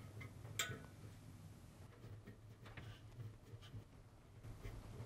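Faint clicks and light ticks of a hand Phillips screwdriver turning small screws into a dryer drum bearing, with one sharper click about half a second in.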